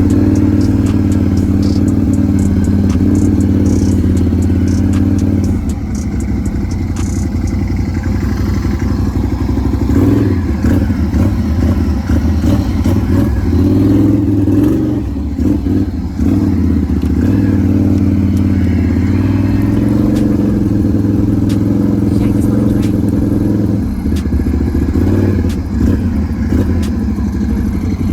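Can-Am Renegade 1000 XMR ATV's V-twin engine running under way, its pitch dipping and rising several times as the throttle changes, with some clatter.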